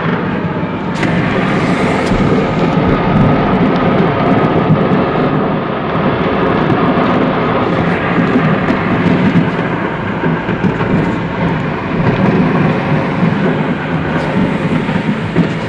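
Fireworks stock going off in a burning pyrotechnics factory: continuous rumbling booms and dense crackling, mixed with road and wind noise from a moving car.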